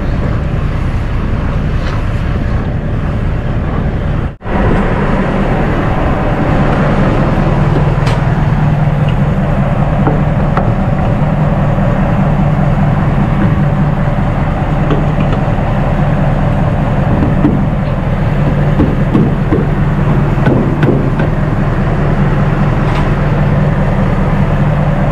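Semi-truck's diesel engine idling close by, a steady low drone that briefly cuts out about four seconds in. A few light clicks of the trailer's air-line and electrical connections being coupled sound over it.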